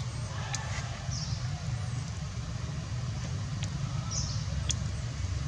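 Outdoor ambience: a steady low rumble with faint, high-pitched bird chirps and a few sharp clicks.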